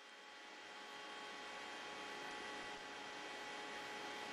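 Steady mechanical hum with a few held tones over a hiss, growing slightly louder.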